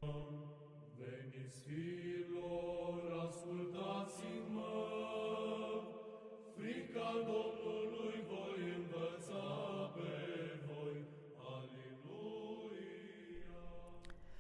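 Church chant: slow sung phrases on long held notes, with a brief pause about six seconds in.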